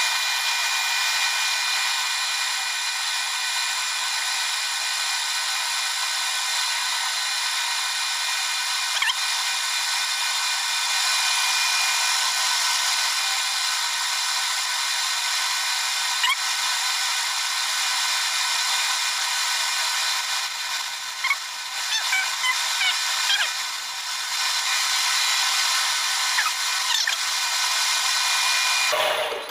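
Metal lathe running with a drill bit fed from the tailstock, drilling into a brass fitting: a steady whine made of many tones, with short squeaks from the cut now and then in the second half. It stops abruptly near the end.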